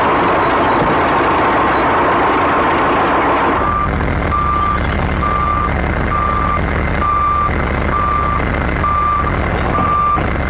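A truck's engine running, and about four seconds in its reversing alarm starts: a steady series of high beeps, about one a second, over the low engine rumble.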